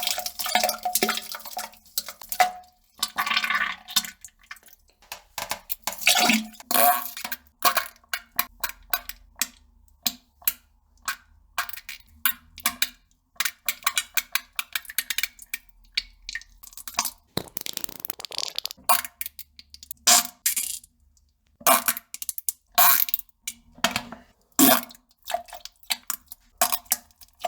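A person defecating into a toilet bowl: many short, irregular plops and splashes into the water, some coming in quick clusters and a few drawn out longer.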